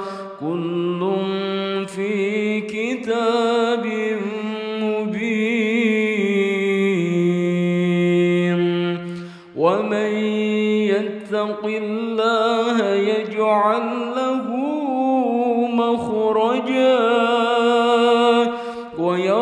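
A solo voice reciting the Quran in slow, melodic tajweed chant. Long held notes carry wavering ornaments, with a short breath pause about nine and a half seconds in.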